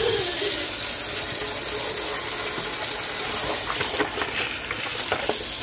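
Kitchen faucet running, its stream splashing and drumming onto a thin copper grill mat in a stainless steel sink. A few clicks and rattles come near the end as the mat is moved.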